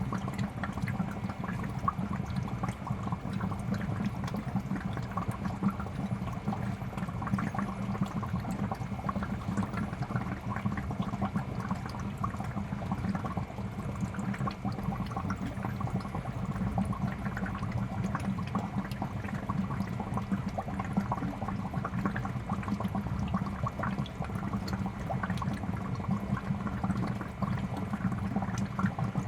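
Pet store fish tank water bubbling and trickling steadily, with a low hum underneath.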